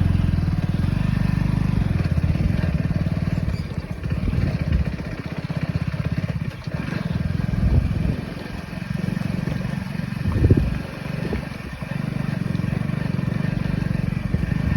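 An engine running with a low, pulsing rumble that dips and swells several times.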